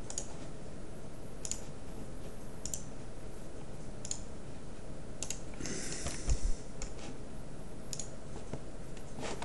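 Computer mouse clicks, single sharp clicks spaced a second or so apart, with a brief louder cluster of clicks and a low thump about six seconds in.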